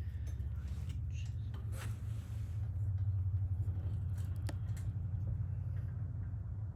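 Electric grinder running with a steady low hum while grinding down excess weld on a steel bar, with a few light clicks and scrapes.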